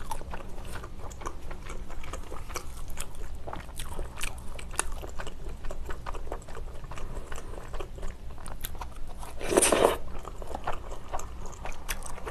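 Close-miked eating of spicy tteokbokki: wet mouth smacks and clicks of chewing chewy rice cakes and thick glass noodles, with one louder, longer burst about ten seconds in.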